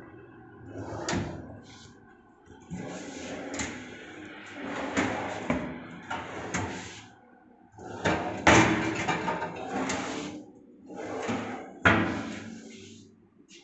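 Modular kitchen drawers, including a stainless-steel wire pull-out basket, being slid open and pushed shut by hand, with a string of sharp knocks as they close.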